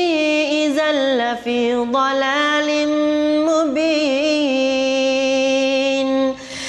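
A man chanting Quran recitation in a melodic style, his voice winding through ornamented turns and then holding one long steady note. He breaks off briefly for breath near the end.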